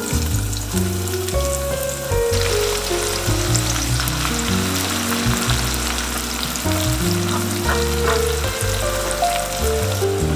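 Sliced shallots sizzling as they deep-fry in hot rendered pork fat and olive oil, the first stage of making pork shallot oil. The sizzle grows louder about two seconds in and then stays steady.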